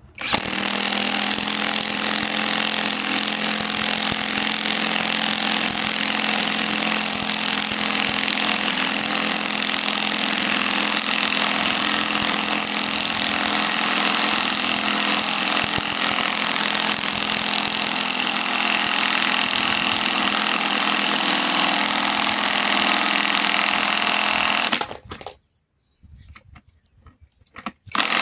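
Hercules Gen 2 compact cordless impact wrench hammering steadily for about 25 seconds while driving a large fastener. It stops suddenly, then gives one short burst near the end. The fastener goes no further, and the Bauer wrench later drives it deeper.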